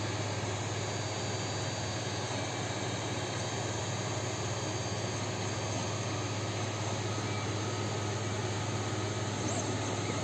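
Creality Ender 3D printer running mid-print: a steady whirr of its cooling fans over a low hum.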